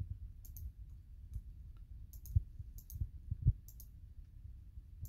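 Computer mouse buttons clicking: several short, sharp clicks, some in quick pairs, with a few dull low thumps among them.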